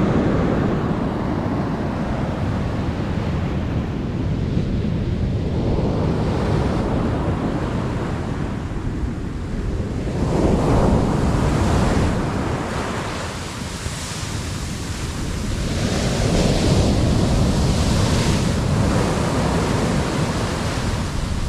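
Ocean surf breaking and washing up a sand beach, with wind buffeting the microphone. The wash swells louder a little before halfway and again about three-quarters of the way through.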